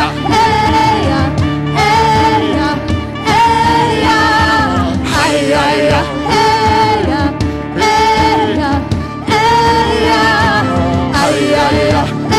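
Worship song with sung vocal phrases over a full band accompaniment.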